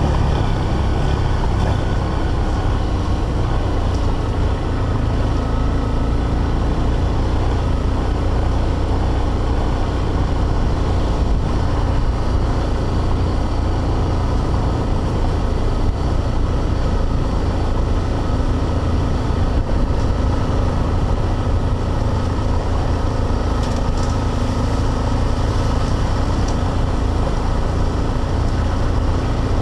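Honda XRE300's single-cylinder engine running steadily as the motorcycle rides along a dirt road.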